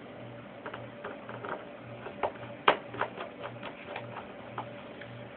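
Small screwdriver driving screws into a Samsung N120 netbook, with a string of irregular small clicks and ticks, the loudest a little under three seconds in.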